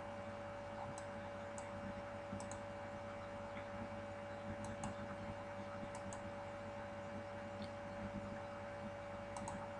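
Faint computer mouse clicks every second or so, some in quick pairs, over a steady low electrical hum.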